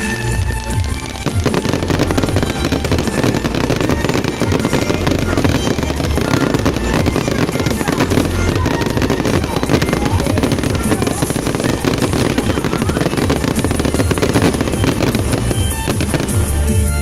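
Fireworks going off in a dense, rapid crackle of bangs over background music, starting about a second in and stopping near the end.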